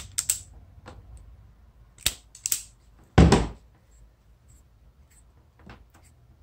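Self-adjusting wire stripper clicking and snapping as it clamps and pulls insulation off thin wire ends: a few sharp clicks, the loudest about three seconds in.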